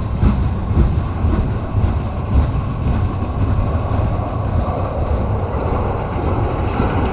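CN freight train rolling past at close range: a steady heavy rumble with the clatter of steel wheels over the rail joints.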